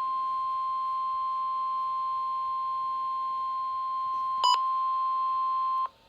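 NOAA Weather Radio's 1050 Hz warning alarm tone: one steady, unbroken beep, with a brief louder blip about four and a half seconds in, cutting off abruptly near the end. The tone marks the start of an emergency alert broadcast, here a severe thunderstorm warning.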